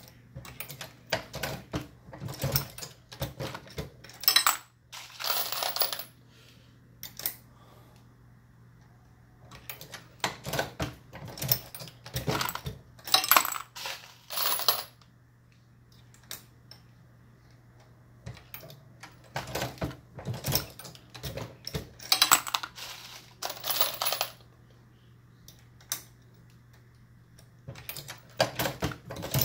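Brass .223 cases clinking and rattling as they are handled from a plastic bin and fed into a Dillon RL550B progressive reloading press, mixed with the metallic clicks and clacks of the press being worked in quick strokes. A few longer, louder spells of brass rattling stand out every several seconds.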